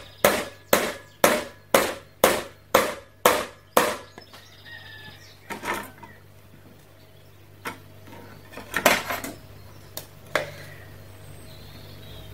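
A stick blender's blending head knocked against the rim of its beaker about eight times, two knocks a second, shaking off the creamed linseed oil and quark clinging to it. After that come a few scattered clinks and scrapes of utensils and a bowl.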